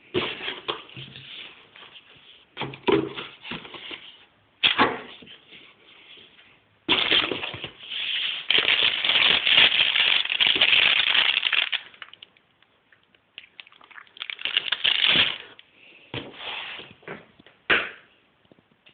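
Cardboard box handled and opened by hand, its flaps scraping and knocking, then the plastic-wrapped packets packed inside crinkling loudly for about five seconds as they are rummaged through, with shorter bursts of rustling later on.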